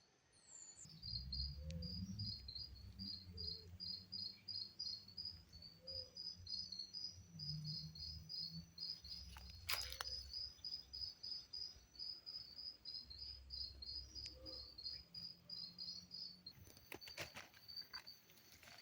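A rainforest insect chirping in a steady, rhythmic run of high double chirps, about two to three a second, that stops shortly before the end. A low rumble sits underneath.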